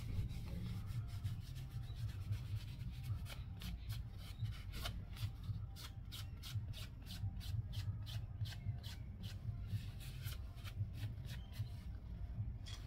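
An oiled cloth rag rubbed over the pommel and grip of an old rusty bayonet, in short scrubbing strokes several times a second.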